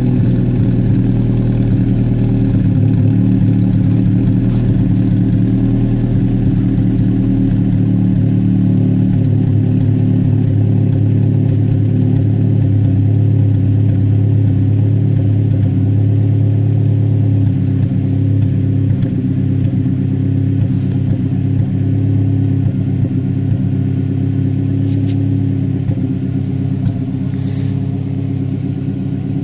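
2007 Ford Focus 2.0-litre inline-four engine running steadily, its note shifting slightly a few times. It is warmed up past the cold-start surging and misfiring and is running normally.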